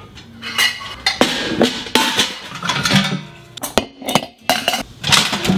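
Stainless steel milking gear (funnel, strainer, milk can and pans) clinking and clattering as it is handled and set down on a wooden counter, with many sharp knocks throughout. Light guitar music plays underneath.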